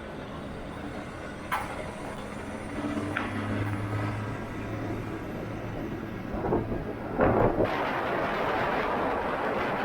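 A vehicle engine running steadily, with a couple of sharp metallic clanks early on. A louder rushing noise takes over near the end.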